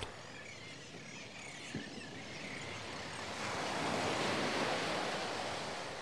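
Surf washing onto a sandy beach, swelling in the second half, with faint thin calls of a seabird flock in the first few seconds.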